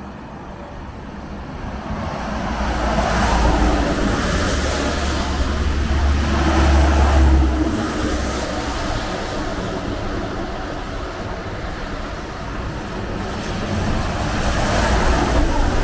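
Heavy trucks going past on a wet road: a deep engine rumble and the hiss of tyres on wet asphalt swell as one passes a few seconds in, and swell again as a semi-trailer truck comes close near the end.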